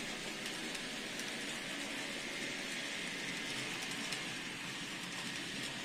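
N scale model train of cabooses rolling along the track: a steady, even hiss of small wheels on the rails with faint scattered clicks.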